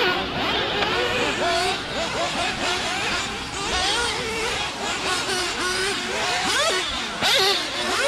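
Several race car engines revving up and down at once as a pack of cars laps, their pitches rising and falling over one another, with one sharp rising rev near the end.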